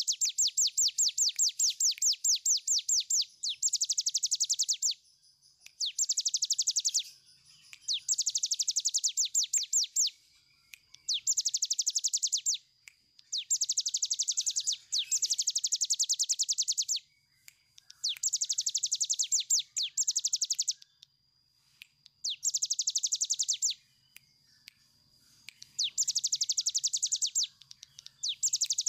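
Caged cigun, a small prinia, singing its long trilled song: phrase after phrase of rapid, evenly spaced high notes, each run lasting one to three seconds, about nine runs separated by short pauses.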